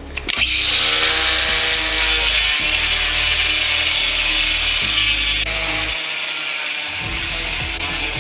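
Makita 18V cordless angle grinder with a cut-off disc cutting through steel 1/4-inch hardware cloth, a steady high grinding hiss. It comes up to speed just after the start and keeps cutting throughout.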